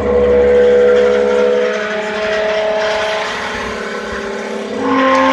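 Electric motor and hydraulic pump of a vertical PET bottle baler running with a steady hum and whine. The pitch of the hum changes about two seconds in and again near the end.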